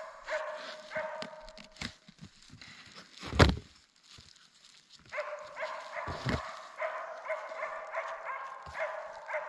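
Dogs whining and yipping in high-pitched, repeated cries, upset at being kept away and wanting to join in. The whining stops for a few seconds in the middle, where there is one loud thump.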